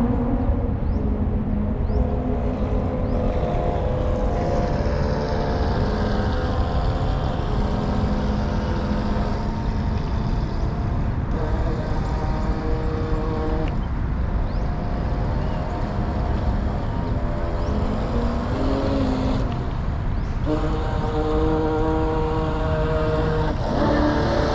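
Heng Long Atlantic Yacht RC boat's electric motor whining as it is driven, the pitch of the whine stepping up and down with the throttle, over a steady low rumble. The whine fades mid-way and is loudest near the end.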